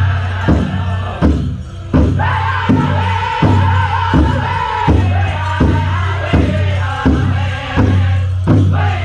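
Powwow drum group singing a chicken dance song in high voices over a big drum struck in a steady beat, about one and a half beats a second. The singing breaks off briefly about a second in and comes back at two seconds while the drum keeps on. A steady low hum runs underneath.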